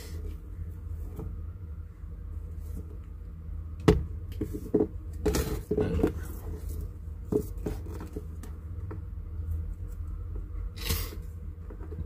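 Scattered knocks and rustles of vegetable pieces being set down and moved by hand on a plastic tray: a sharp knock about four seconds in, a cluster of them a second later and a brief rustle near the end, over a steady low hum.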